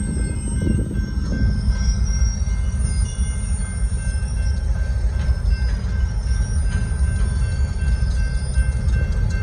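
Freight cars rolling past: a steady heavy rumble of wheels on rail, with thin steady high tones over it.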